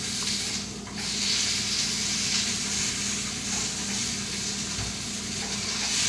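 Food sizzling in a frying pan: a steady hiss that starts suddenly about a second in.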